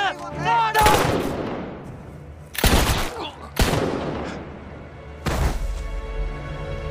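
Handgun shots: four loud reports spaced one to two seconds apart, each with a long echoing tail. Steady music comes in near the end.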